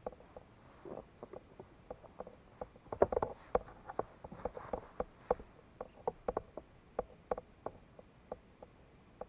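A hooked piranha handled and unhooked with pliers at the side of a plastic kayak: irregular light clicks and knocks, with a flurry of louder ones about three seconds in.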